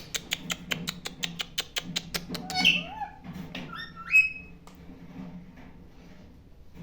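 Pet parrots chirping and squawking in short gliding calls, the loudest a little after four seconds in, over a quick run of sharp clicking taps, about five a second, that stops about halfway through.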